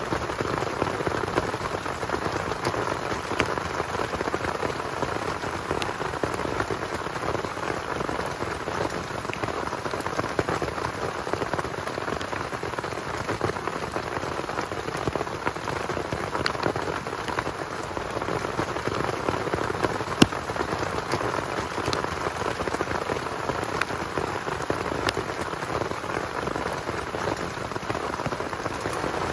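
Heavy rain falling steadily, with occasional sharp single ticks of drops striking.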